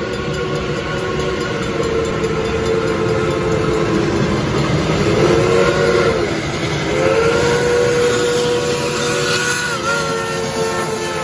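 Steam locomotive's chime whistle, several notes sounding together, blown in long blasts with a short one about five seconds in, its pitch bending as the valve opens and closes. The locomotive is sounding for a road crossing as it approaches.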